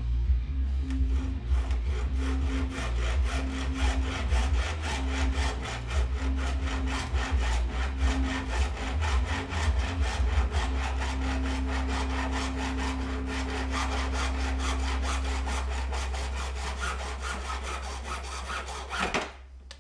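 A power saw cutting with rapid, even strokes over a steady motor hum, then stopping abruptly near the end.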